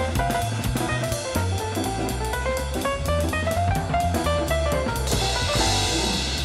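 Instrumental background music with drums, a bass line and a plucked melody, with a cymbal wash about five seconds in.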